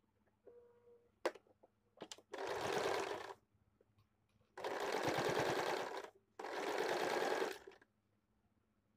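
Domestic sewing machine stitching cotton fabric in three short runs, each about a second long, with a single click before the first run.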